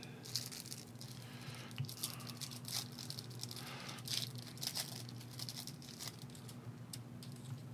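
Faint scratchy rustling and clicking of trading cards being handled and slid against one another, irregular and continuous, over a low steady electrical hum.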